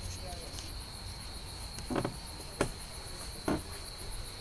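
Crickets chirping in a steady, fast, high trill. Three short knocks stand out above it about two, two and a half, and three and a half seconds in.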